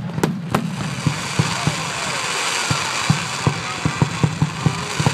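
Fireworks: a few sharp bangs just at the start, then the steady hiss of a ground fountain spraying sparks, with short dull pops repeating several times a second beneath it.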